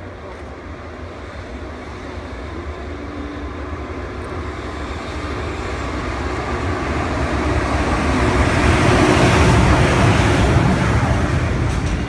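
Container freight train hauled by an electric locomotive approaching and passing, a rumble of the locomotive and wheels on the rails that grows steadily louder. It peaks as the locomotive goes by about nine seconds in, then gives way to the rolling of the container wagons.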